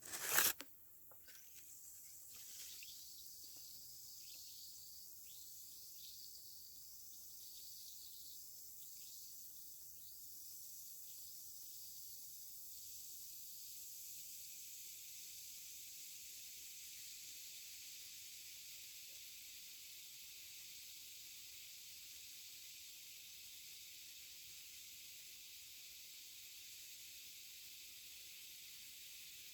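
Water fizzing and crackling with a high hiss that sounds like thousands of frogs. A loud sharp click comes right at the start, then scattered ticks that merge into a steady hiss about halfway through.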